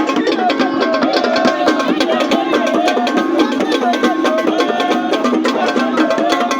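Music with fast, busy percussion of wood-block-like clicks and drums under a melodic line.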